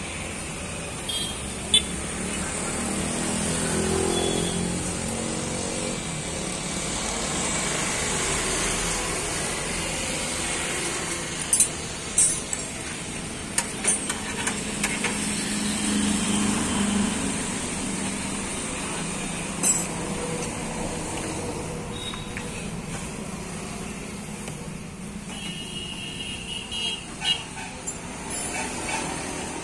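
Steady background street and traffic noise, swelling and fading slowly as vehicles pass, with a few short sharp clicks and knocks.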